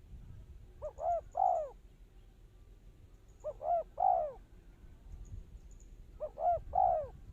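Spotted dove calling: three phrases of three short coos each, the last coo of each phrase the longest and loudest, repeated about every three seconds.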